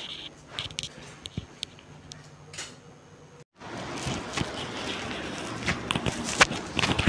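Light footsteps and scattered small clicks and knocks over faint room noise. The sound drops out completely for an instant about three and a half seconds in, then comes back louder, with a steady hiss and more clicks.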